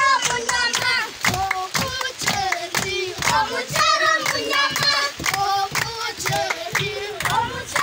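A group of children singing a chant together, with hand claps keeping a steady beat.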